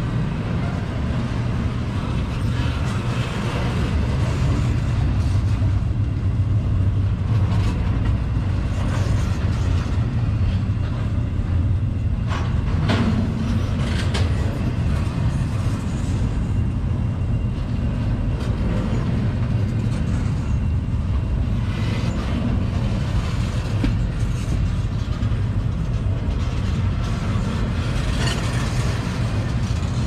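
CSX intermodal freight train's double-stack well cars rolling past, a steady low rumble of steel wheels on rail. A few brief sharper noises stand out in the middle.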